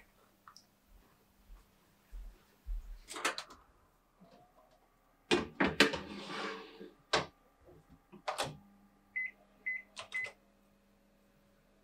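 A metal baking tray clatters and scrapes as it is slid onto the rack of a preheated countertop oven, and the oven door shuts with a clunk. Then come three short high beeps about half a second apart as the control panel is pressed to start baking.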